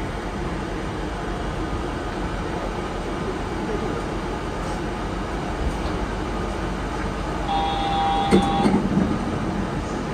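Yurikamome 7500-series rubber-tyred automated guideway train running steadily, heard from inside the front of the car. Near the end a brief steady tone of several pitches at once sounds for about a second, with a sharp knock in the middle of it.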